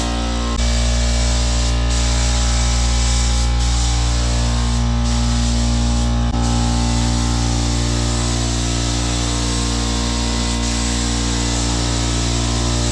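Background music with sustained chords that change abruptly about half a second in and again near the middle.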